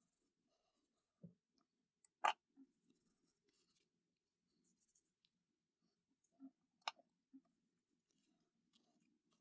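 Near silence with faint handling rustle, broken by two sharp clicks, about two seconds in and near seven seconds, as small hard parts of a disassembled folding knife are handled.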